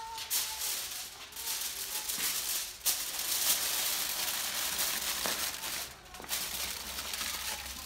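Aluminium foil crinkling and crackling as hands fold and crimp it around a pan to seal it, with a brief lull about six seconds in.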